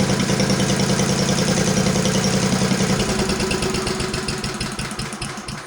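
Cast iron Briggs & Stratton 9 hp single-cylinder engine running steadily, then shut off about three seconds in by grounding the spark plug; the firing slows and fades as the engine coasts down to a stop.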